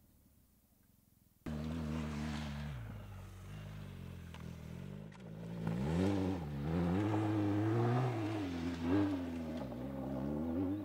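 BMW R 1250 GS boxer-twin motorcycle engine under load off-road: it comes in suddenly about a second and a half in, runs steadily, drops in pitch, then revs up and down over and over in the second half as the throttle opens and closes.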